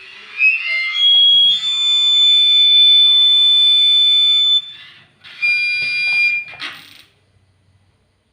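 High-pitched whistling tone from a homemade walkie-talkie circuit's speaker, gliding up at first and then holding a steady shrill pitch for about four seconds. It breaks off, and a second, shorter whistle follows about half a second later.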